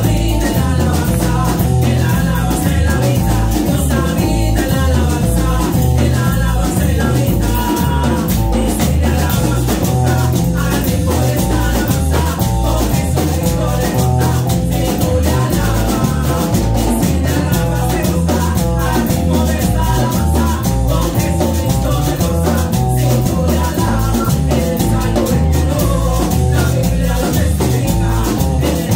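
Live worship song: two women singing into microphones over electric guitar and a drum kit keeping a steady beat.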